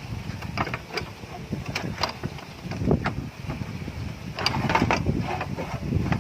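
Irregular clicks and knocks of hand tools and metal parts being handled, with a busier clatter about four and a half seconds in.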